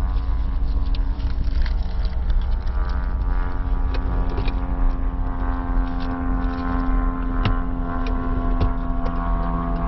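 Car engine idling, heard from inside the cabin: a steady low rumble and hum, with one tone growing stronger about three seconds in. A few light clicks near the end.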